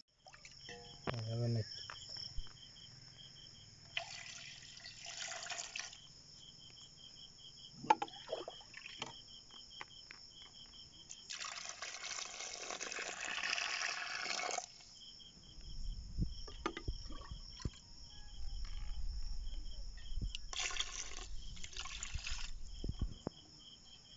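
Water being poured from a steel vessel into an aluminium pot of stuffed brinjals, in several splashing pours; the longest and loudest lasts about three seconds near the middle. Crickets chirp steadily throughout.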